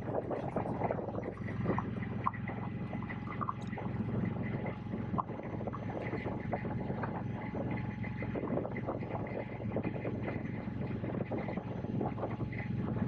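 2021 Indian Scout Bobber's V-twin engine running steadily while the motorcycle is ridden, with light wind noise over the microphone.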